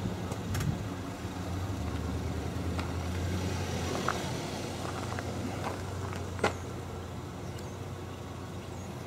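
A motor vehicle engine running with a low steady hum that eases off a little after about six seconds, and a sharp click about six and a half seconds in.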